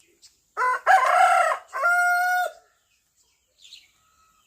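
A rooster crowing once, a full cock-a-doodle-doo: a short first note, then a longer middle and a held final note lasting about two seconds. A faint short chirp follows near the end.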